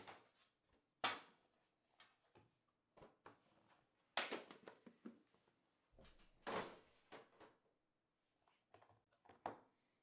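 Handling noise from opening a Panini Immaculate Collegiate card tin and taking out the card box inside: scattered scrapes, clunks and rustles, the sharpest about a second in and about four seconds in.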